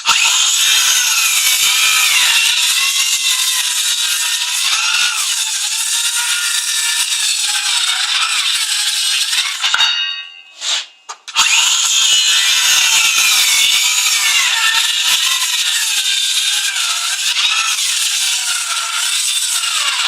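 Milwaukee M18 FUEL CCS66 brushless circular saw ripping 38 mm CLS timber in two long cuts. Each cut lasts about ten seconds, with a whining blade note that wavers with the feed. Between the cuts there is a short spin-down and a brief blip. The second cut stops abruptly near the end, where the saw cuts out with its fault.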